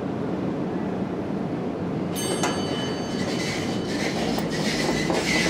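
Hydraulic elevator arriving at the landing: a steady low hum, then about two seconds in a ringing tone sounds and the landing doors slide open with a rolling rattle.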